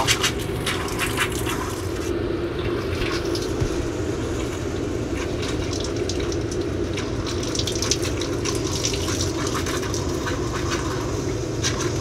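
Water running steadily from an RV kitchen faucet into the sink at full pressure, the water heater tank having filled with vinegar solution, with the steady hum of the RV's water pump underneath.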